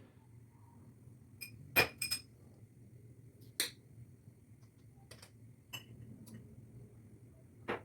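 Scattered sharp clinks and taps of kitchenware, a spoon knocking against glass, about seven times with the loudest about two seconds in. A low steady hum runs underneath.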